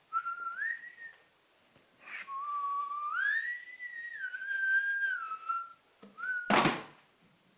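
A person whistling a short tune in a few phrases, the notes sliding up and down; a single sharp knock cuts in near the end.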